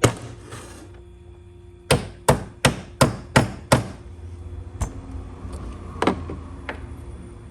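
Mallet striking the die of a Lee Loader hand reloading kit, seating and crimping a bullet in a .38/.357 Magnum case: one blow, then a quick run of six blows, then a few lighter knocks.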